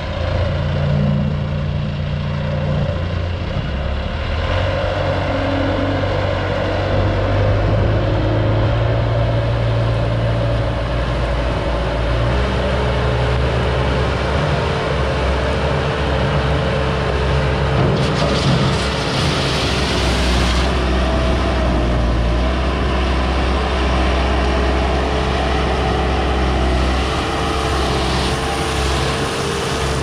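2005 Bobcat S250 Turbo skid steer's turbocharged diesel engine running just after starting, then raised in speed as the machine drives and works its loader bucket. A steady whine joins in about twelve seconds in, and a harsh hiss lasts about three seconds past the middle.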